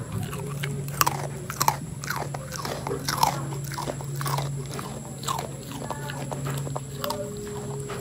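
Dog crunching and chewing a crisp biscuit: irregular sharp crunches, a few a second, over a steady low hum.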